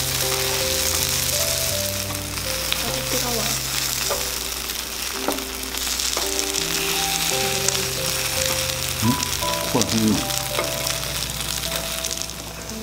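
Takoyaki batter frying and sizzling in oil in an iron takoyaki pan, a steady hiss. Background music with held notes plays over it.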